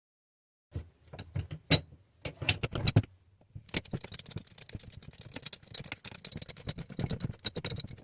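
Heavy steel pipe wrenches being handled: a few sharp metal knocks and clicks, then a long run of fast metallic rattling and clinking.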